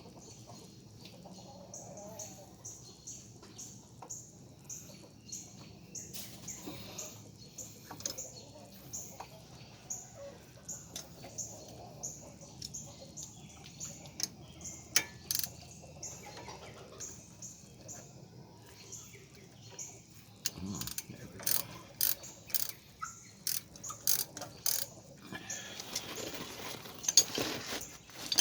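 Ratchet wrench clicking in short runs along with metal tool clinks, as brake caliper bolts are threaded back in and run down. The clicks are faint at first and get louder and sharper in the last several seconds.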